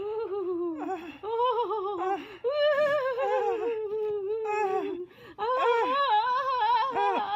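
A person's high-pitched voice moaning in long, wavering tones, broken into several drawn-out stretches by short pauses: mock sex moans voiced for shoe puppets.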